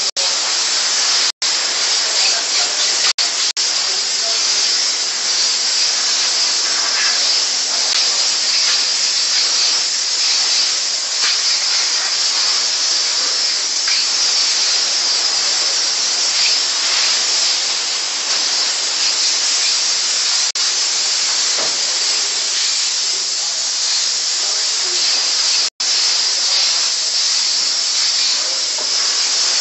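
Steam car washer's hose wand jetting steam in a steady, loud hiss. It breaks off for an instant twice.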